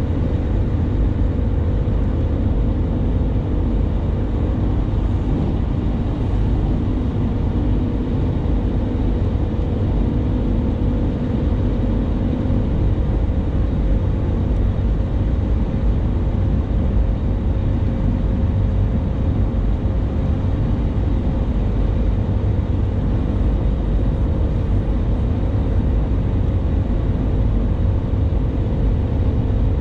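Steady road noise inside a moving car: tyre and engine drone heavy in the low end, with a steady hum running through it.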